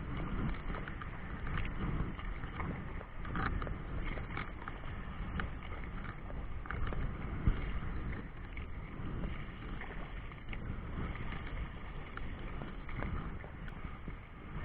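Wind rumbling on the microphone over choppy river water, with irregular small splashes and slaps of water.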